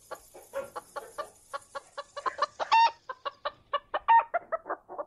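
Chicken clucking in quick repeated clucks that grow louder, with two longer, louder squawks about three and four seconds in.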